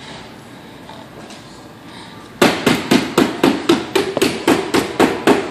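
A quiet stretch, then a little over two seconds in a fast, even run of sharp knocks begins, about five a second, like rapid hammering.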